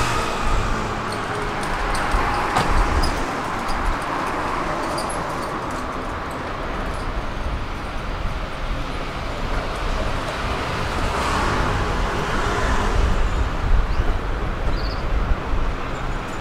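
City street traffic: cars and other motor vehicles running along the street in a continuous noisy wash, with scattered small clicks and knocks.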